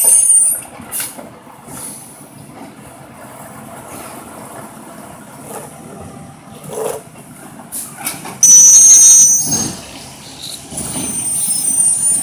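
Side-loader garbage truck's engine running as the truck creeps along, with air brakes hissing. One hiss ends just after the start, a loud sudden hiss lasting about a second and a half comes about eight seconds in, and a softer hiss builds near the end as the truck stops beside a bin.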